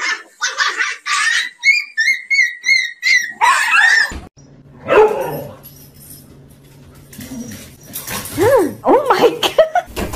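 Dogs yipping and barking in rapid, short, high-pitched calls for about four seconds, cut off suddenly. After that comes one loud falling call, and near the end a few short rising-and-falling animal calls.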